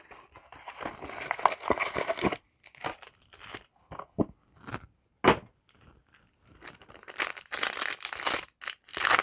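Foil Yu-Gi-Oh! booster pack wrapper crinkling and being torn open, with scattered short rustles from the cards being handled in the middle and a louder burst of crinkling near the end.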